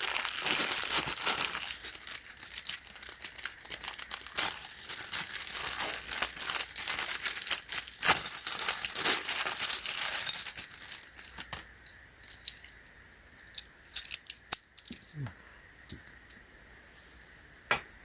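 Plastic packaging crinkling and rustling as small repair tools are handled and unwrapped, for about ten seconds. Then it quietens to scattered small clicks and taps.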